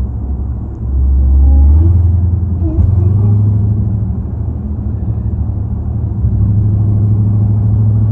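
Dodge Charger SRT Hellcat's supercharged V8 heard from inside the cabin under way. The engine gets louder about a second in and rises in pitch about two seconds in as she accelerates, then holds a steady low drone.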